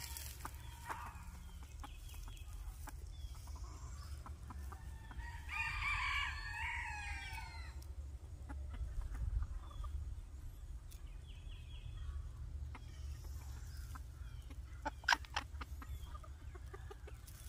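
A rooster crowing once, a single call of about two and a half seconds starting about five seconds in. A few sharp clicks come near the end.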